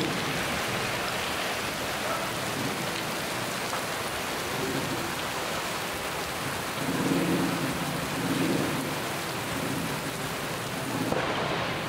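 Steady rain falling, with a low rumble swelling twice a little past the middle.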